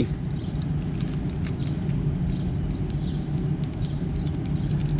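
Faint clicks and jingles of a car key being handled in the first second or so, over a steady low hum.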